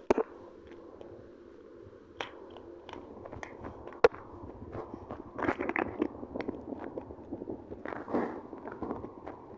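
Plastic Lego bricks being handled and clicked together: a few sharp clicks, then crackly rattling and rustling about five and eight seconds in.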